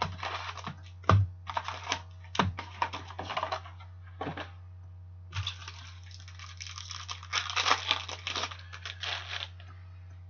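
Opening a box and packs of Upper Deck hockey cards by hand: quick rustling and clicking of cardboard and pack wrappers, with a few sharp knocks in the first three seconds and a longer stretch of dense rustling near the end. A steady low hum runs underneath.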